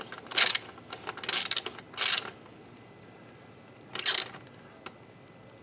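Harbor Freight socket ratchet clicking in four short bursts as it is worked back and forth on the kickstand pivot bolt of a motorcycle.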